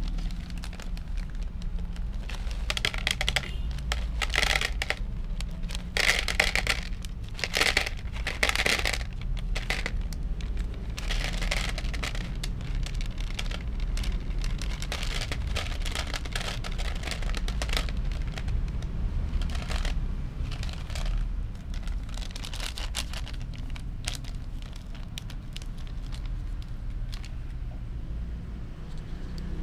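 Plastic pouch of dry cat food crinkling as it is handled and shaken out, with kibble rattling into a plastic tub. The crinkling comes in irregular bursts, loudest in the first third, over a steady low rumble.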